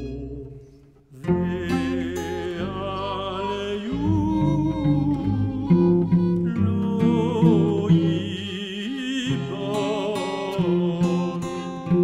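Instrumental music: one passage fades away in the first second, then a new one starts with plucked notes under a held, wavering melody line that moves from note to note.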